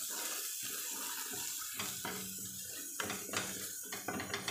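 Onion and spice masala sizzling in hot oil in a metal kadhai, with a steady hiss, while a wooden spatula stirs it, scraping and knocking against the pan several times.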